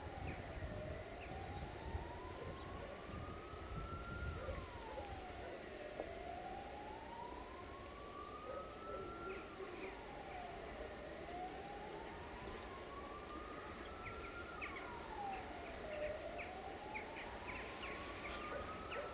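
A siren wailing in slow, even cycles, each tone climbing for about three to four seconds and then dropping back more quickly, about four cycles in all. Short high chirps come in over it in the second half.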